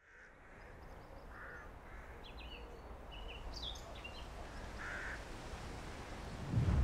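Outdoor bird ambience fading in: crows cawing now and then and smaller birds chirping over a low rumble. Near the end a deep rumbling swell rises sharply and becomes the loudest sound.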